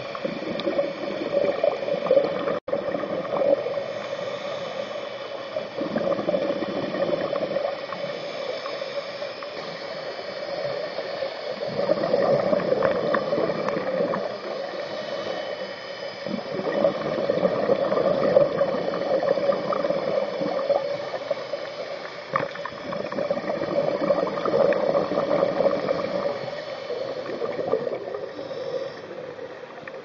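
Scuba diver's exhaled bubbles rushing and gurgling from the regulator, heard underwater, swelling and fading in slow waves every several seconds with each breath. A momentary cut-out about two and a half seconds in.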